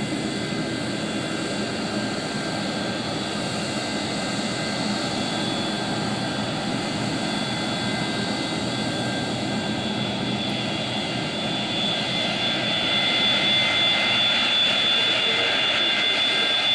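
Boeing 737-200's Pratt & Whitney JT8D jet engines running: a steady rush with several high whining tones that grow louder about three-quarters of the way through.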